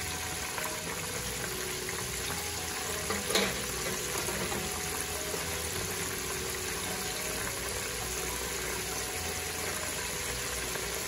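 Cornmeal-breaded oysters deep-frying in canola oil in a stockpot: a steady bubbling sizzle of oil frying hard. A brief knock sounds about three seconds in.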